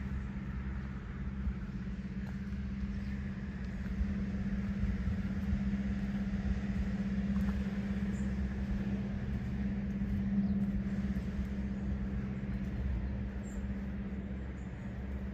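An engine humming steadily, a low drone that swells a little in the middle and eases toward the end, with a few faint high chirps.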